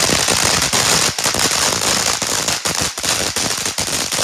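Ground fountain firework spraying sparks: a steady loud hiss packed with rapid crackling pops.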